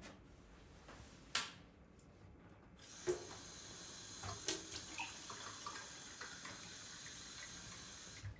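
A sharp click, then a tap turned on about three seconds in: water running steadily into a sink, with a few small clinks, until it stops just before the end.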